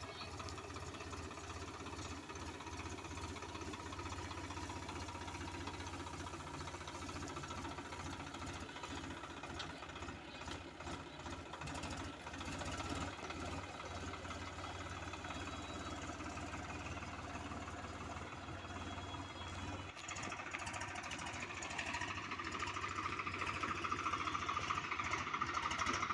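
Swaraj 735 FE tractor's three-cylinder diesel engine running steadily as it pulls a loaded trolley, growing louder over the last few seconds as it comes closer.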